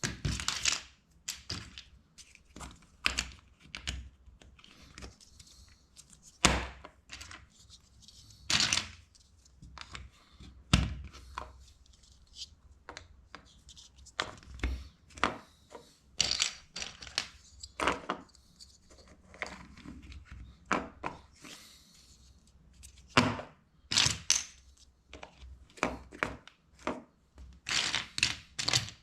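LEGO bricks being handled and snapped together: irregular sharp plastic clicks and snaps, a few every couple of seconds, with brief rustling of loose pieces between them.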